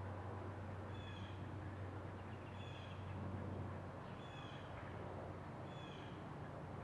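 A bird's short, slightly falling call, repeated four times about every second and a half over a steady low hum.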